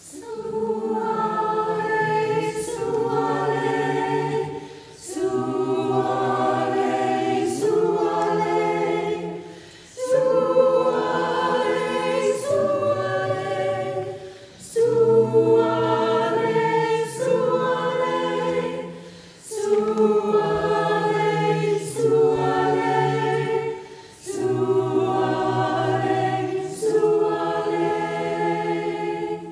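Choir voices singing an African lullaby unaccompanied in close harmony. They sing slow phrases of held chords, each about five seconds long, with short breaks for breath between them.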